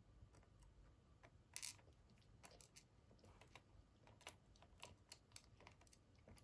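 Faint, scattered clicks and taps of small lock pins and parts being tidied up by hand, with one louder tap about a second and a half in.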